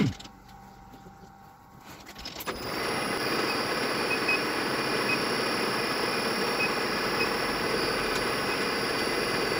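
A sharp knock right at the start. About two seconds in, a metal lathe starts up and runs up to a steady speed, with a steady high whine over its running noise.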